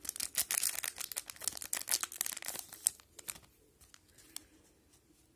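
Plastic wrapper of a hockey card pack crinkling and tearing as it is opened and the cards are pulled out, dense crackling for about three seconds, then only faint rustles and clicks of the cards being handled.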